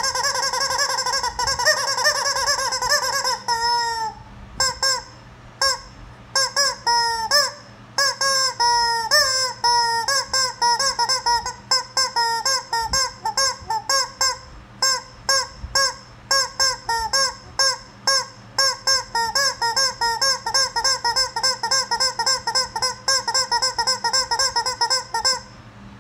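Rubber chicken squeeze toy squawking: one long held squawk, then short squawks in quick succession, speeding up to roughly three a second.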